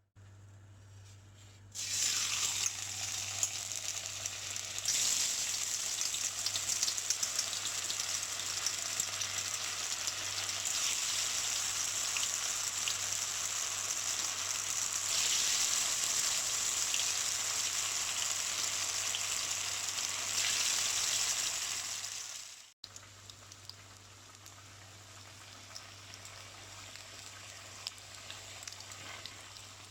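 Batter-coated cauliflower pieces deep-frying in hot oil: a steady sizzle that starts about two seconds in and grows louder in steps. About three quarters of the way through it drops suddenly to a quieter sizzle.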